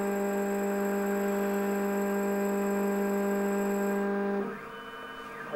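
Cutter motor of a Futura Pro key machine running with a steady whine while it makes its calibration passes over the Z3 template key. It cuts off about four and a half seconds in, leaving fainter mechanical sounds from the machine.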